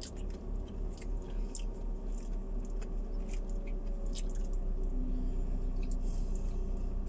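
People chewing food, with scattered clicks and scrapes of plastic spoons against plastic takeaway containers, over a steady low hum.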